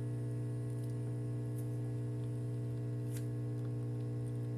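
Steady electrical mains hum with a buzz of overtones, plus two faint soft clicks about a second and a half and three seconds in.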